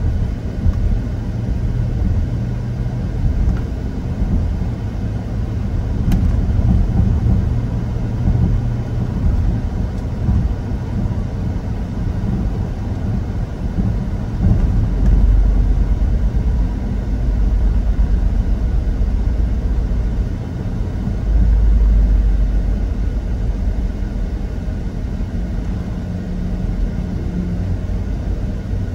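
Steady low rumble of a car's engine and road noise, picked up by a dash cam inside the car, swelling louder twice: about halfway through and again about two-thirds through.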